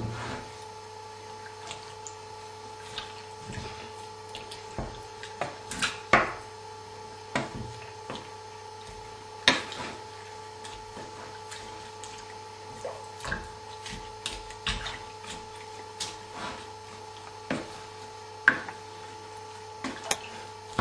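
A wooden spoon stirring a wet, chunky mixture in a metal pot, with irregular knocks and scrapes against the pot, over a steady electrical hum.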